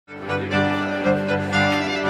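Instrumental theme music with bowed strings, starting at once.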